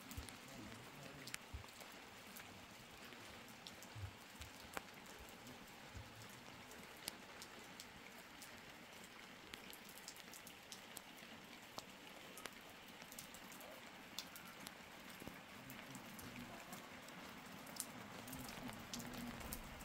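Rain falling, faint: a steady hiss with single drops ticking sharply now and then.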